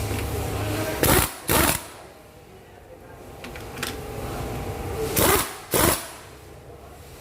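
Impact wrench run in short paired bursts, driving the screws of a coil-spring compressor to squeeze a strut's spring: two bursts about a second in and two more about five seconds in, over a steady hum.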